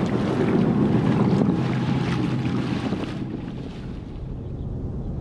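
Wind buffeting the microphone over the splash and rush of water as a small dinghy moves through choppy harbour water. The sound drops away sharply about three seconds in.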